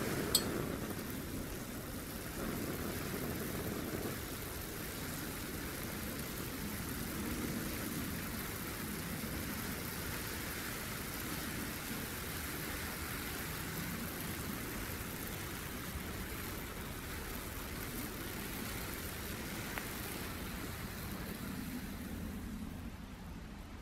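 Gas canister stove burning under a stainless mug of coffee grounds at a rolling boil: steady burner hiss with bubbling water. A short sharp click comes just after the start, and near the end the hiss drops away as the flame is shut off.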